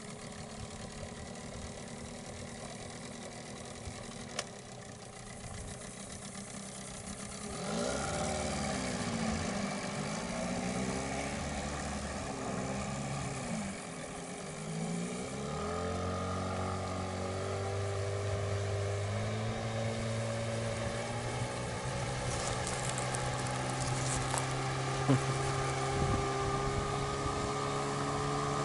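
Boat outboard motor running, louder from about eight seconds in with its pitch wavering, then rising in steps as the throttle is opened.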